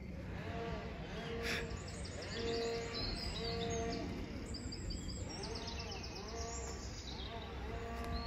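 Outdoor animal chorus: many repeated low calls overlapping one another, with birds chirping and singing above them.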